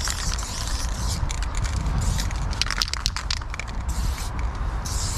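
Aerosol spray paint can hissing against a corrugated metal fence, starting and stopping in several strokes, with a run of short spurts about halfway through, over a steady low rumble.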